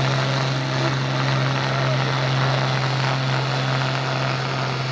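International 966 tractor's turbocharged diesel engine running flat out at a steady pitch, pulling the weight sled down the track.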